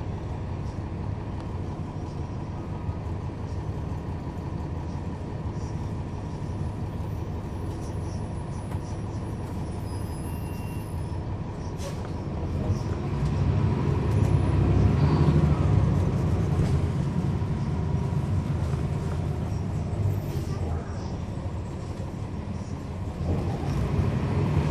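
Cummins ISL9 diesel engine of a NABI 40-foot transit bus, heard from on board as a steady low rumble. It grows louder for a few seconds past the midpoint, eases off, then builds again near the end. A single sharp click comes just before the first rise.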